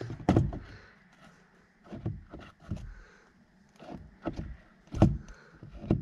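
A replacement steering wheel knocking and clunking against the steering column as it is handled and lined up on the shaft: a few scattered knocks, the loudest about five seconds in.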